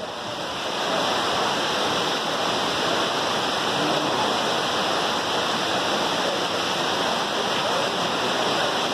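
Tall waterfall pouring down a cliff onto rocks: a steady, loud rush of falling water.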